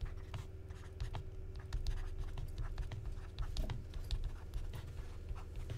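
Stylus writing on a tablet screen: a string of light, irregular taps and scratches as words are handwritten, over a low steady hum.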